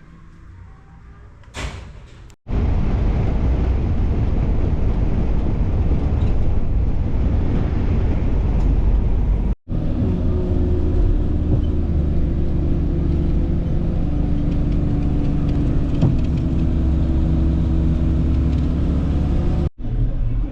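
A motor vehicle running with a steady low engine and road rumble. It comes in several clips that break off abruptly, and a steady engine hum is plain in the later clips.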